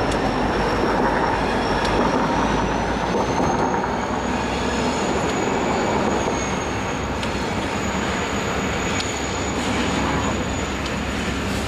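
Freight cars of a train (covered hoppers and boxcars) rolling steadily along the rails with a continuous rumble. A thin high wheel squeal runs over the rumble and rises slightly in pitch a few seconds in.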